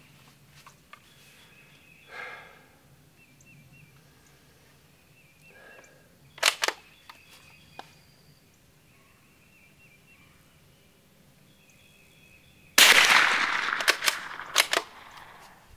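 A Savage B22 FV-SR bolt-action .22 LR rifle: a double click of the bolt closing about six seconds in, then a single shot near the end that echoes for a couple of seconds, followed by a few sharp clicks as the bolt is worked. Faint bird chirps in the background.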